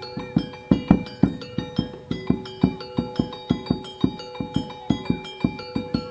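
Instrumental music: a steady, fast run of drum strokes, about three to four a second, under ringing held notes.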